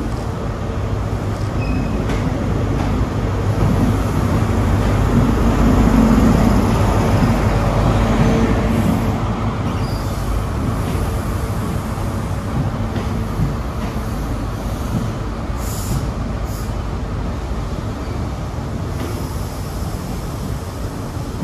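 ScotRail Class 43 HST diesel power car running with a steady low rumble that swells about six seconds in and then eases off, with a few short air hisses later on.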